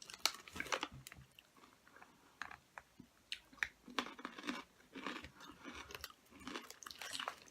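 Close-up crunching and chewing of hard, crunchy barbecue peanuts (Planters Crunchers), irregular crackly crunches as they are chewed.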